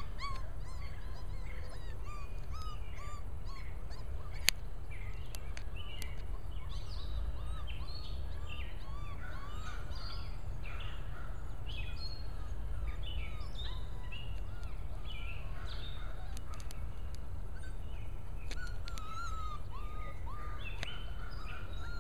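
Many short, high chirping and squeaking animal calls come scattered and overlapping throughout, over a steady low rumble. There is one sharp click about four and a half seconds in.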